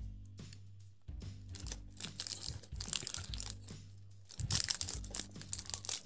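Plastic KitKat wrapper crinkling and tearing as fingers pull it open, loudest about four and a half seconds in, over background music with a steady low bass.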